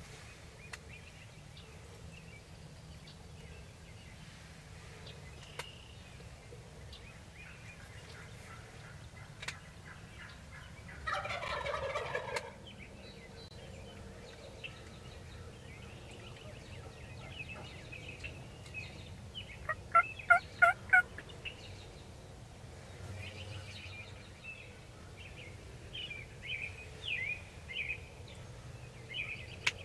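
Wild turkeys calling: a tom gobbles once about a third of the way in, and about two-thirds in comes a louder run of about six evenly spaced yelps, the loudest sound. Short high calls follow near the end.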